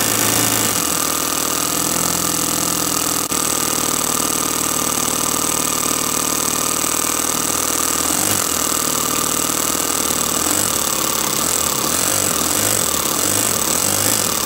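Toyan FS-S100 single-cylinder four-stroke nitro model engine running steadily on the bench while its carburettor is adjusted by hand; its note wavers and varies in speed in the second half.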